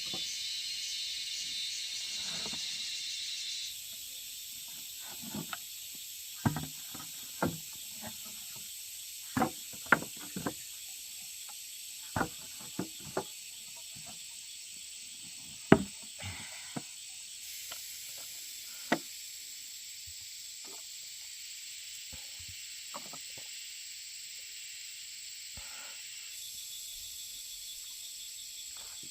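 Irregular sharp knocks and taps, about fifteen of them at uneven intervals, over a steady high insect chorus. The loudest knock comes a little past the middle.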